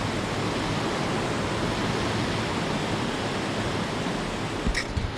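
Steady rushing noise of surf and wind outdoors, even throughout, with two short knocks near the end.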